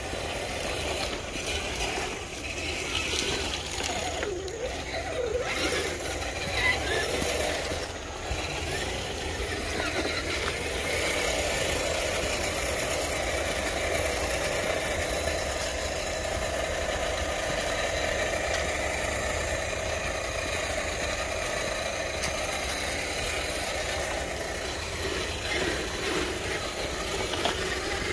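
Electric motors and geared drivetrains of 1/10 scale RC crawler trucks running along a dirt trail: a steady mechanical whine, a little louder from about eleven seconds in.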